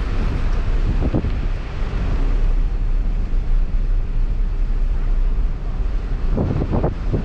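Strong wind buffeting the camera microphone: a loud, steady low rumble.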